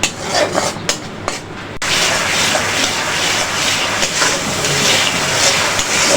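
Masala paste with chopped coriander frying in hot oil in a pan: a few clicks over a quieter sizzle, then, about two seconds in, a loud steady sizzle.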